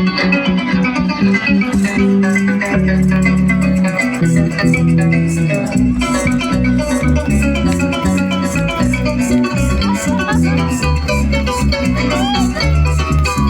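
Instrumental Venezuelan llanera music: quick plucked string melodies over a moving bass line, with maracas shaking steadily throughout.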